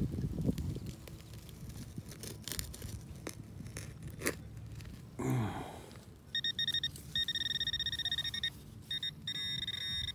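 Hand digger scraping and knocking in clay soil, then a Garrett pinpointer sounding a high electronic tone, held steady at first and breaking into quick beeps near the end: metal lies close to the probe's tip in the hole.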